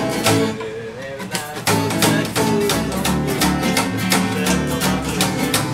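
A small live acoustic band: strummed acoustic guitars and a plucked upright double bass keep a steady beat under a male voice singing.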